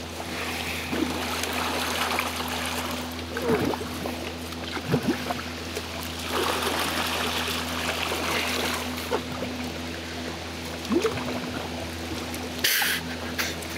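Moving river water rushing and trickling around an inflatable kayak pushing upstream against the current, with paddle blades dipping in every few seconds over a steady low hum.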